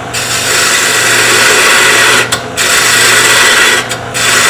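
A woodturning tool cutting into wood spinning on a lathe: a loud, steady hiss of shavings being cut, broken twice by brief pauses as the tool eases off. The lathe's motor hum runs steadily underneath.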